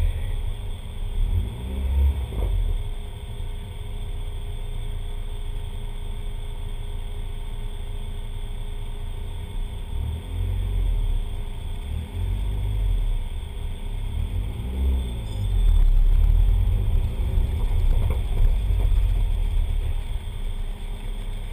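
Turbocharged Ford Laser TX3's four-cylinder engine idling with a deep rumble while waiting in the staging lanes, with several short revs that rise and fall in pitch and a louder stretch about two-thirds of the way through.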